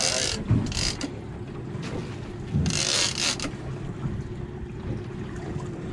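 Wind gusting over the microphone and sea water washing about a small boat, over a low steady hum, with the loudest gusts at the start and from about two and a half to three and a half seconds in.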